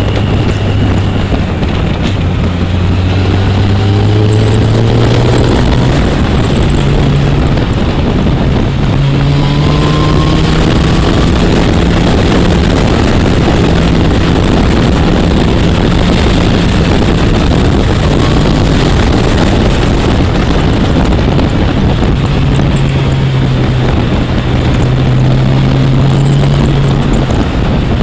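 Onboard sound of a motorcycle on the move: its engine running under a loud, steady rush of wind, the engine note rising and falling with the throttle.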